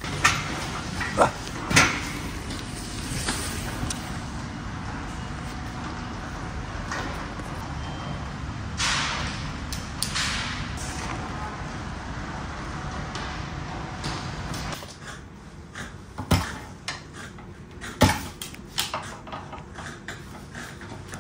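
Workshop work noise: a few sharp knocks near the start, then steady background noise. Towards the end comes a run of sharp metal clunks and clatters as a car seat's steel frame is taken apart.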